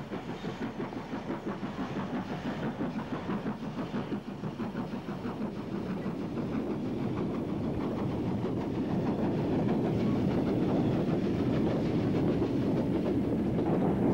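Steam-hauled freight train passing, its wagons clattering over the rail joints in an even rhythm. The sound grows steadily louder from about halfway through as the steam banking engine pushing at the rear draws near.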